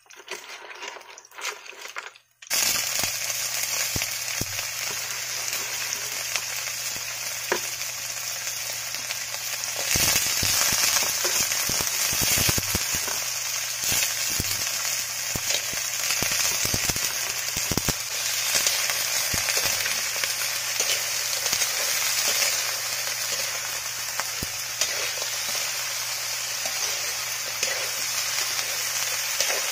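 Fiddler crabs frying in hot oil in a wok: a loud, steady sizzle that starts suddenly about two and a half seconds in. Scattered scrapes and clicks of a metal ladle stirring them run through it.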